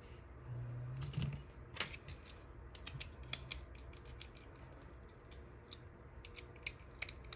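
Irregular small metallic clicks and taps of lock tools working in a dimple lock cylinder whose picked plug is stuck and won't turn back or come out.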